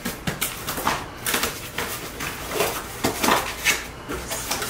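Corrugated cardboard mailer boxes being folded by hand: scraping and creasing of the cardboard, with several sharp knocks as flaps and blanks hit the table.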